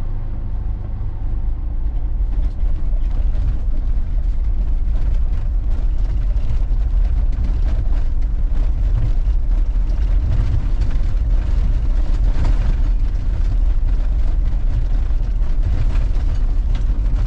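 Troller 4x4 driving on a rough dirt road: a loud, steady low engine and road rumble, with frequent small knocks and rattles from the bumps.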